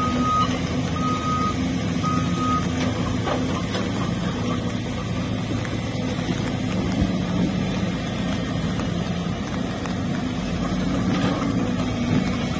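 Cat hydraulic excavator's diesel engine running steadily, with three short electronic alarm beeps in the first couple of seconds.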